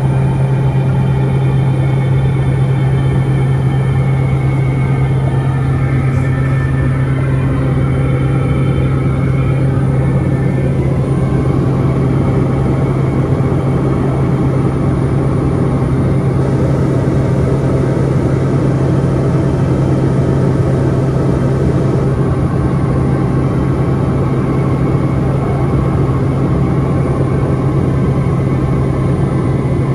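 Cabin noise of a Piper Meridian in flight: its single PT6A turboprop engine and propeller make a loud, steady drone with one strong low hum.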